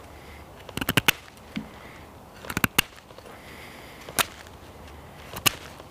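Bushcraft knife shaving a wooden stick in a chest-lever grip: short, sharp cuts of the blade through the wood, a quick cluster of three or four about a second in, a pair about a second and a half later, then single strokes.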